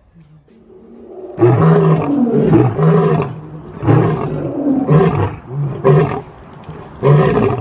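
Lion roaring: a bout of loud, deep roars that starts about a second and a half in and repeats about once a second.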